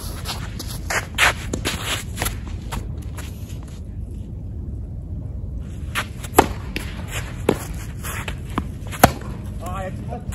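Tennis ball bouncing on the court and being struck by a racket: single sharp knocks spaced a second or more apart, with the loudest, the serve hit, near the end. A steady low rumble runs underneath.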